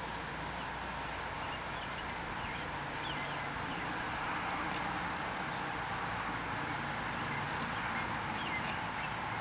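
Steady outdoor background noise in a summer field, with a few faint bird chirps now and then.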